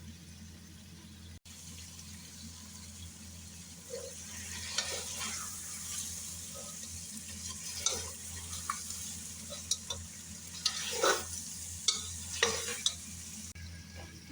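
Mutton and ginger-garlic paste frying in ghee, sizzling steadily. From about four seconds in, a spoon stirs the meat, with irregular scrapes and clicks against the pot.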